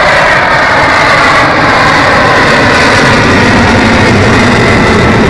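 Avro Vulcan XH558's four Rolls-Royce Olympus turbojets, heard as loud, steady jet noise during its air-show display.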